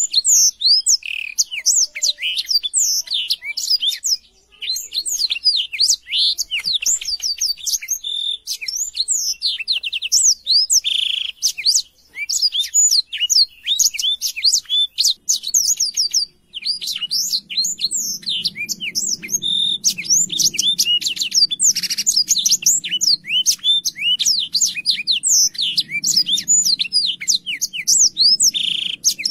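Black-throated canary (blackthroat) singing a fast, near-continuous song of rapid chirps and rolling trills, broken by a few brief pauses.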